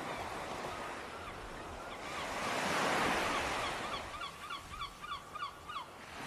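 Ocean surf washing in steadily and swelling to a peak about three seconds in. Over the second half a bird gives a quick run of short, repeated calls, about four a second.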